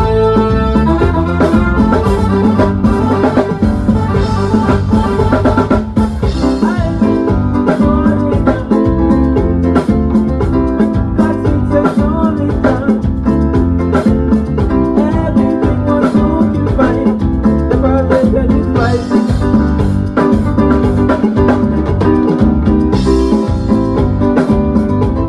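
Music with a full drum kit keeping a steady beat under guitar and other instruments, possibly with singing.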